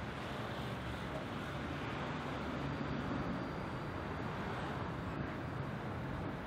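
Steady city street traffic noise, swelling slightly as a vehicle passes about halfway through.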